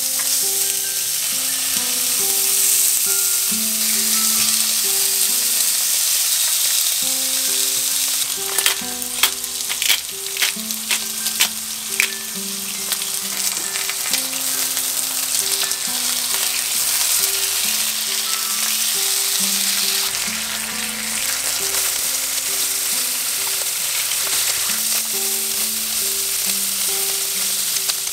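Pork belly slices sizzling as they fry in a hot nonstick pan. A run of sharp clicks about nine seconds in comes from metal tongs knocking against the pan as the meat is turned. Soft background music plays underneath.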